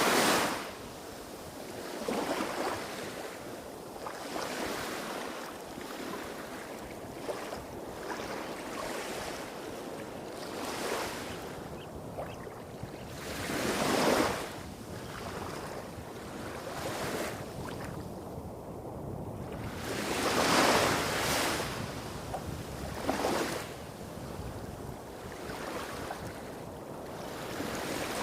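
Small, calm waves breaking and washing on a beach in an irregular rhythm, each wash swelling and fading over a second or two, with bigger ones about halfway through and two-thirds of the way in. Under them runs a steady low rumble from waves hitting rocks a few hundred metres off.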